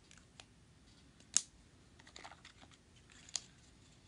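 Small plastic clicks and ticks of a lipstick tube and its cap being handled and snapped together, with a sharp click about a third of the way in, a run of softer ticks in the middle and another sharp click near the end.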